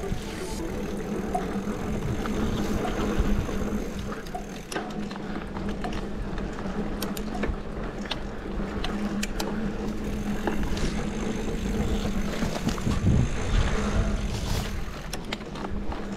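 Mountain bike being ridden along a dirt trail: a steady low rumble and hum from tyres and motion, with frequent sharp rattling clicks from the bike.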